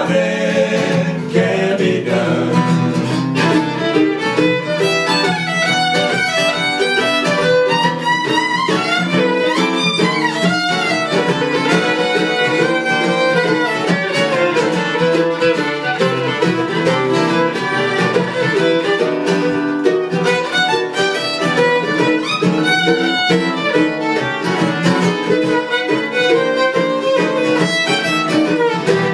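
Live acoustic string trio playing an instrumental break: the fiddle takes the lead melody while acoustic guitar and mandolin accompany.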